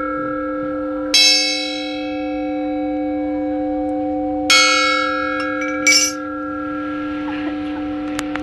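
Burmese bronze spinning gong, a flat shaped plate about 31 by 45 cm, struck twice, each stroke giving a clear ringing tone that sustains for several seconds, with a shorter, brighter hit about six seconds in.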